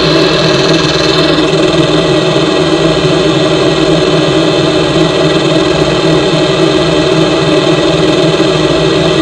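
Automatic rollover car wash machinery running: a steady, loud motor and pump hum with a hiss over it, the higher hiss dropping away about a second and a half in.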